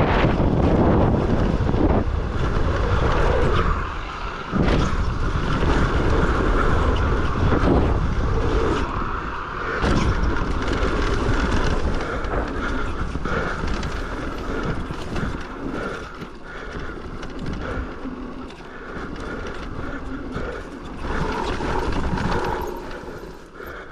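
Pivot Shuttle e-mountain bike descending a muddy downhill trail: wind rushing over the microphone, with steady tyre noise and rattles from the bike. Sharp knocks come about 4.5 and 10 seconds in, and the noise eases off in the second half.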